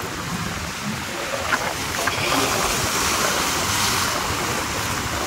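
Sea surf washing onto the beach: a steady rush of waves that swells up about two seconds in and eases off again near the end.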